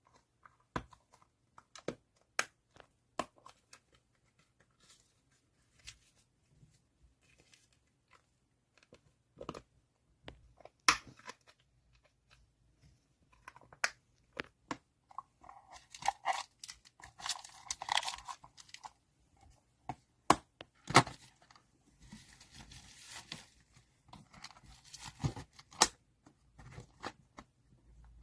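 Photocard packing: plastic sleeves and tape being handled, crinkling and tearing. Scattered small clicks and taps run throughout, with two longer stretches of crinkling in the middle and later on.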